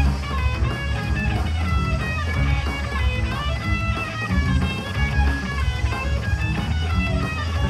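Live rock band playing a J-rock song: electric guitars with a melodic lead line over bass and drums. The band comes back in together at the start after a brief break.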